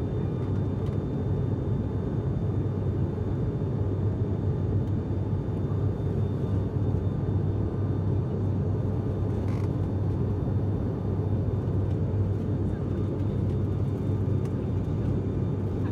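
Steady low drone of an ATR 72-600's turboprop engines and six-blade propellers, heard inside the passenger cabin during the climb after takeoff.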